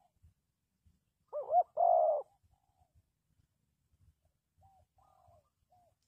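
Spotted dove cooing: one loud call about a second in, a couple of quick rising-and-falling notes and then a longer held coo, with fainter short coos near the end.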